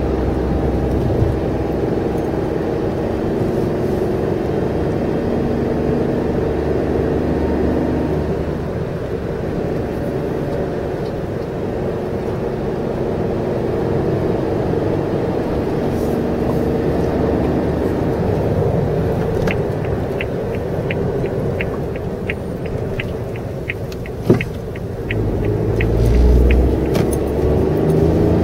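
Suzuki Jimny JB64 driving, heard from inside the cabin: its 660 cc turbocharged three-cylinder engine and road noise run steadily. Past the middle a light ticking goes about twice a second for several seconds, with a single knock among it, and near the end the engine note rises as it accelerates.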